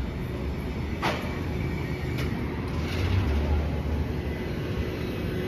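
City street noise: a steady low rumble of traffic, with a sharp click about a second in and a fainter one near two seconds.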